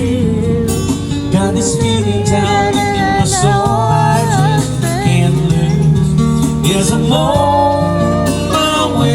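Music: a singer holding wavering, vibrato-laden notes over guitar accompaniment.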